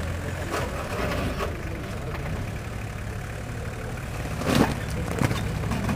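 Off-road 4x4's engine running slowly at low revs as it crawls over rough dirt. A sharp knock comes about four and a half seconds in, and a lighter one about half a second later, as the vehicle works over the mound.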